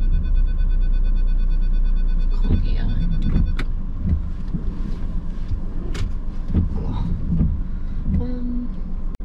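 Car parking sensor beeping in a rapid string of pulses, warning of an obstacle close by, until it stops about three and a half seconds in. Under it runs the car's low engine rumble, with a few soft knocks.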